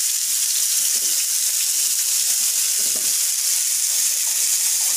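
Marinated chicken pieces sizzling steadily in hot oil on a flat tawa over a high gas flame, a continuous high-pitched frying hiss.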